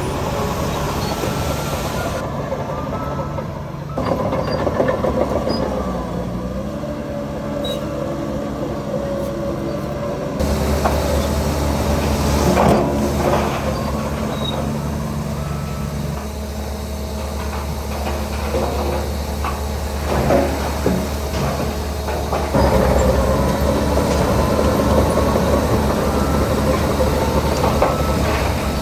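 Diesel engines of heavy earthmoving machinery, a crawler bulldozer and dump trucks, running under shifting load. Metallic squeals, and a few sharp clanks about halfway through, typical of a crawler's tracks.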